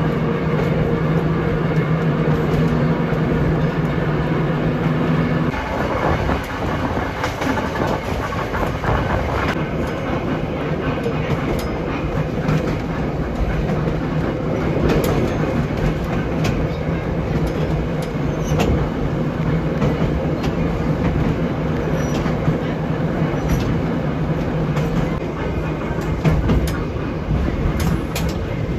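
Electric trolley car running on its track: a steady hum, typical of the traction motors and gears under power, stops about five seconds in, and the car rolls on with the wheels rumbling on the rails and clicking over rail joints.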